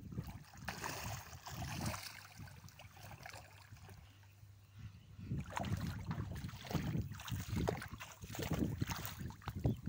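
Water sloshing and splashing as a person wades and works his hands in shallow water, in irregular uneven strokes that grow busier about halfway through.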